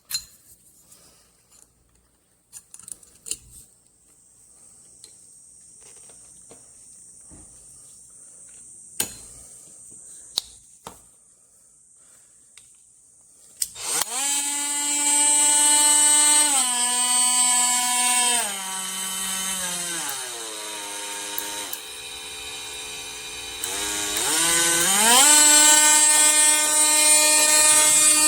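Quiet handling clicks, then about halfway through an oscillating multi-tool's motor spins up and runs with a steady whine. Its speed is stepped down several times, then rises back up and holds high near the end.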